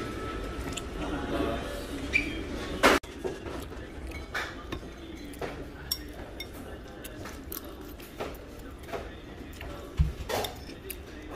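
Metal spoon clinking and scraping in a rice bowl while eating, with scattered light clicks. A sharp knock comes about three seconds in and a dull thump near the end.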